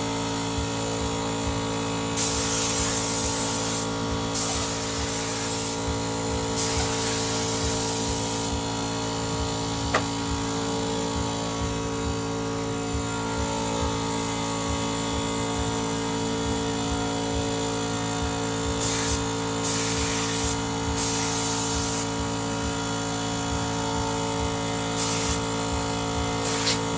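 Motomil 24-litre air compressor running steadily, with repeated hissing blasts of compressed air being let out. There are three longer blasts of one to two seconds each in the first third, and several shorter ones near the end.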